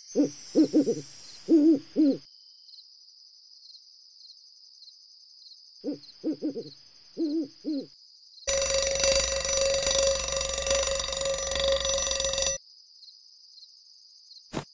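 An owl hoots in two short runs of hoots over a faint steady chirring of crickets. Then an alarm clock rings loudly for about four seconds, the wake-up call for suhoor, and stops abruptly.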